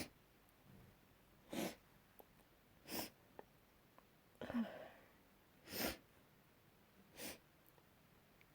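A person sneezing repeatedly: about five short, sharp sneezes, roughly one every second and a half. The middle one is drawn out a little longer.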